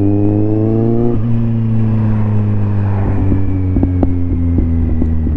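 Kawasaki Z750R inline-four motorcycle engine and exhaust pulling hard with its pitch climbing, then dropping suddenly about a second in as with an upshift, after which it runs on at lower revs with the pitch slowly falling. A few sharp crackles come through in the second half.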